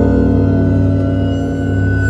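Eerie horror-style ambient music: a deep sustained drone with held tones above it, and a thin high tone that begins to slide slowly downward near the end.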